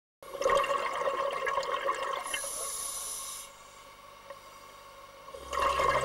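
Muffled underwater water noise with a fine crackle, as recorded by a camera under the sea; it drops lower about halfway through. Near the end, slow music with sustained low notes fades in.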